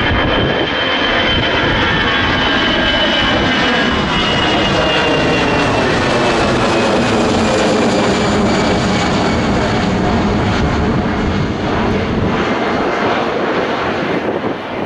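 Twin jet engines of an easyJet Airbus A320-family airliner at climb power as it departs and climbs away: a loud, steady jet noise with a high whine that slowly falls in pitch. The sound begins to fade near the end.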